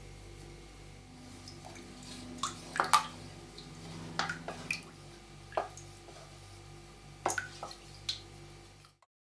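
A series of scattered drips and light clinks, about seven of them with the loudest about three seconds in, over a steady low hum.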